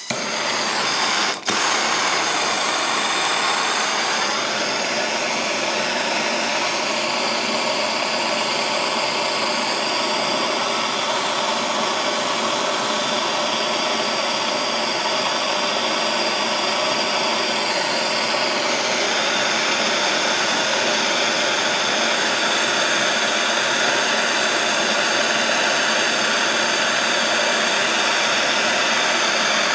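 Handheld gas blowtorch burning with a steady hissing roar as its flame plays over a freshly thrown clay bowl to firm up the wet clay. The flame comes on right at the start and briefly drops out about a second and a half in.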